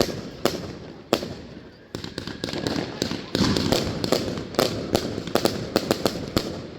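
Fireworks going off in a string of sharp bangs: a few spaced reports at first, then a dense run of rapid bangs and crackle from about two seconds in.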